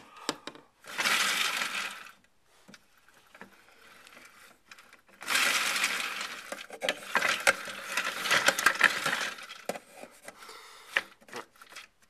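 Toy Hotpoint washing machine running its drum, a rattling, clicking plastic clatter in two spells: a short burst about a second in and a longer run from about five seconds until near the end.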